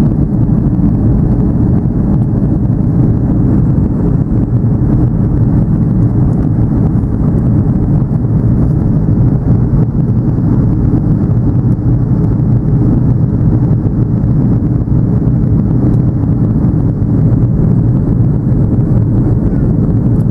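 Steady low rumble of an Airbus A330-200 airliner heard from inside the passenger cabin: engine and airflow noise, even in level throughout.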